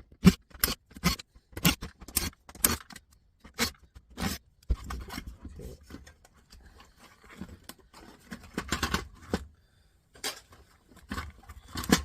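Irregular sharp clicks, knocks and light clatter of plastic and metal parts being handled and pulled apart while a stereo tuner's front panel is dismantled, with a busier run of clatter near the end.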